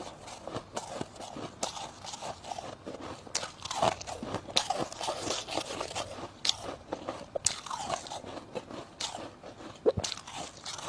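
Dry freezer frost being bitten and chewed: irregular, close-up crunches with sharp clicks.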